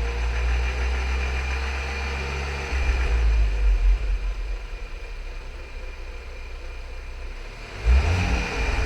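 Skoda Yeti's 1.2 TSI (CBZB) petrol engine running, with a thin, steady high-pitched whine over a low rumble, recorded to show an abnormal engine noise. A sudden louder surge comes near the end.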